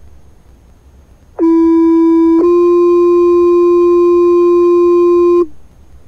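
Two-tone sequential fire pager tone-out over a fire dispatch radio channel, received through a handheld radio scanner: one steady tone for about a second, then a slightly different steady tone for about three seconds. It is the tone sequence that sets off a fire station's pagers.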